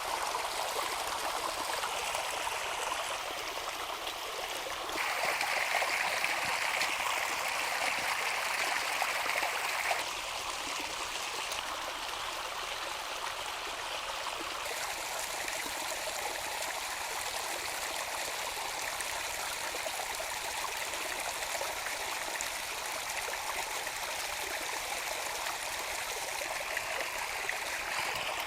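Flowing water: a steady rush that shifts in tone about five, ten and fifteen seconds in.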